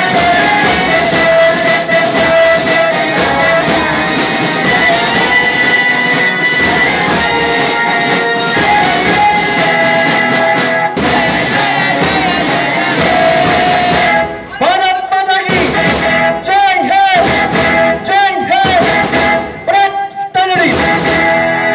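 Recorded music. It is full and dense at first; about two-thirds of the way through it thins to a wavering lead line broken by short gaps.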